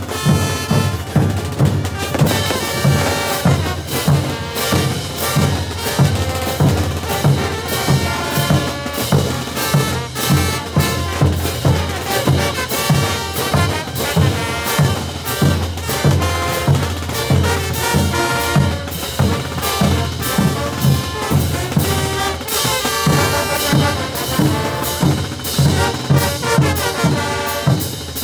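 Bolivian brass band playing a morenada: trumpets and trombones over drums, with a steady, heavy beat.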